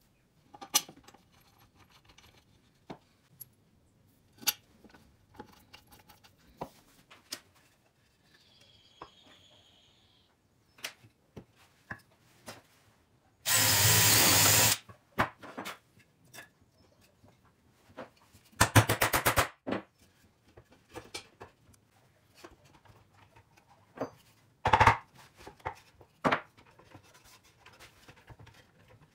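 Workbench handling: scattered knocks and clicks of wooden pieces and metal parts being set down and fitted. About halfway through, a DeWalt cordless drill runs steadily for about a second, boring into wood, and a few seconds later there is a second, shorter burst with a rapid rattle.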